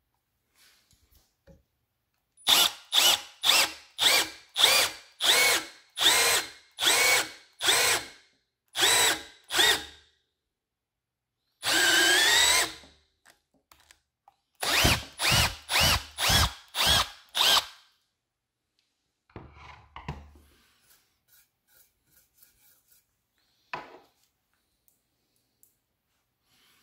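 Milwaukee cordless drill boring a 5/16-inch pilot hole into wood, run in short trigger pulses. A string of quick bursts comes first, then one longer run of about a second in the middle, then another string of bursts.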